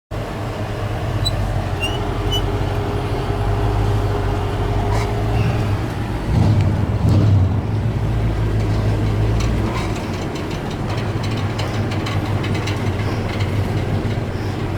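A vehicle engine running with a steady low rumble, which swells briefly about six to seven seconds in, with light rattles over it.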